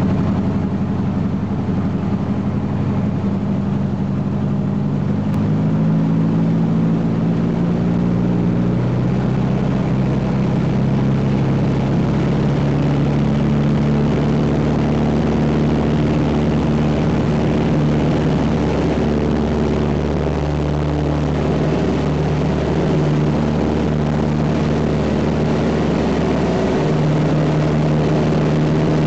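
Van's RV-4's piston engine and propeller running steadily, heard from inside the cockpit as the plane rolls along a grass strip. The engine gets louder about six seconds in, and its note shifts in pitch a few times after that.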